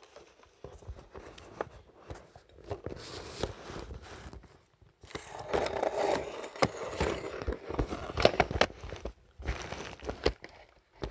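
Handling noise close to the microphone: rustling and scraping with many sharp clicks, loudest in the middle, as hands and fingers rub and tap against the phone and the bedding.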